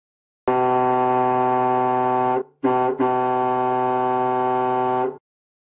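Ship's horn sounding two long, steady blasts of about two seconds each, separated by a brief break, on one low pitch.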